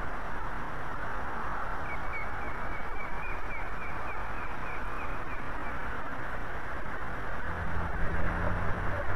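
Osprey alarm calls: a run of short, high, evenly spaced notes, about three a second, over steady wind noise on the nest camera's microphone. A low rumble builds near the end.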